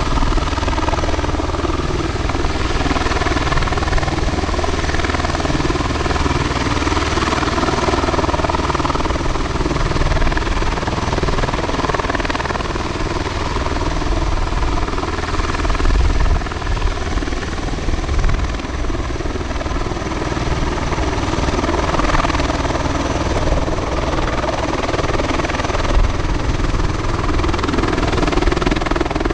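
Bell Boeing CV-22B Osprey tiltrotor running on the ground, nacelles upright and both proprotors turning. Its two Rolls-Royce AE 1107C turboshaft engines give a steady whine over a low rotor drone.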